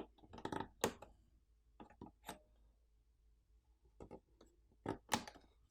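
Scattered small sharp clicks and taps, about ten spread irregularly: the spring retaining clips of a laptop-style DDR4 RAM slot being pulled apart and the memory module lifted out by hand.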